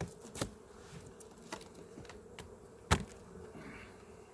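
Honeybees buzzing in an open hive, a steady hum, with a few sharp knocks and clicks, the loudest about three seconds in.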